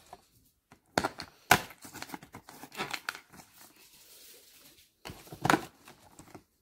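Cardboard doors of chocolate advent calendars being pushed and torn open. Short tearing and crinkling sounds come in three brief bouts, the last near the end.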